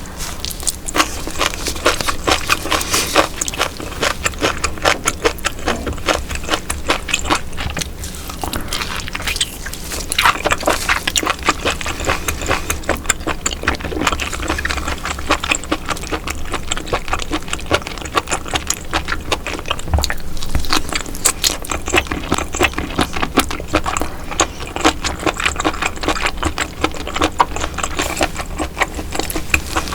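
Close-miked eating sounds: wet chewing with a dense, continuous run of sharp mouth clicks and smacks.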